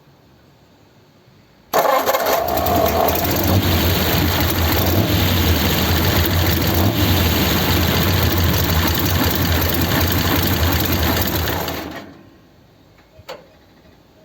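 1932 sedan hot rod's engine cranked over on its newly replaced starter, catching and running steadily for about ten seconds, then dying away when switched off. A single faint click follows near the end.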